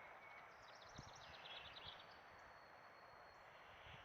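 Near silence with faint bird chirps and a thin, high trill in the background.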